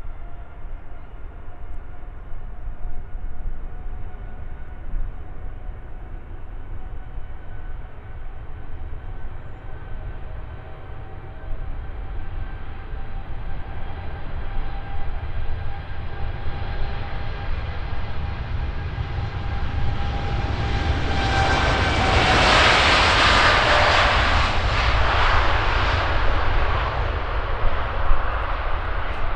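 Boeing 787-8 taking off: the whine of its jet engines over a low rumble slowly builds to a loud rush about 22 seconds in as it passes closest, the whine dropping in pitch, then eases off.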